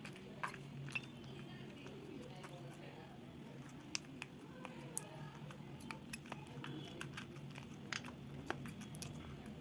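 Silicone pop-it fidget toy's bubbles being pressed by a finger: soft, irregular pops and clicks, a few sharper ones standing out, over a faint steady hum.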